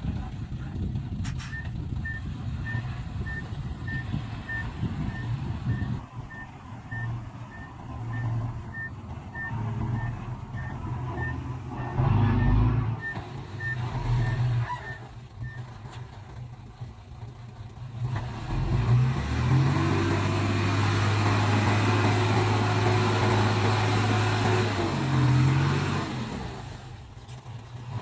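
Heavy diesel earthmoving machinery running, with a reversing alarm beeping steadily, about one and a half beeps a second, through the first half. Later the engine is held at higher revs for several seconds, then drops back.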